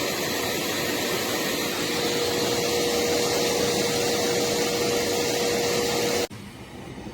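Dog grooming vacuum running: a steady rushing noise with a steady whine, which cuts off suddenly about six seconds in.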